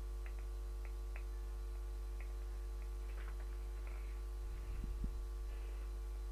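A steady low hum with a few faint, scattered clicks, and a soft low bump about five seconds in.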